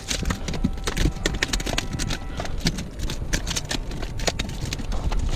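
A landed yellowtail amberjack (dorado) thrashing on rock, its body and tail slapping and knocking against the stone in quick, irregular strikes.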